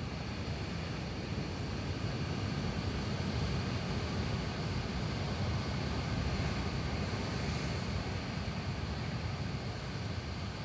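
Steady noise of heavy surf breaking against rocky cliffs, with wind buffeting the microphone.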